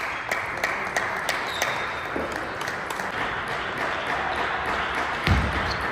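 Table tennis ball clicking against bats and table in quick, fairly even succession, about three clicks a second, over a steady hall noise. A heavy thump comes near the end.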